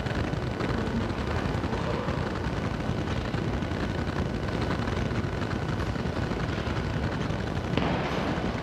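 Steady low rumbling background noise, with one brief louder knock near the end.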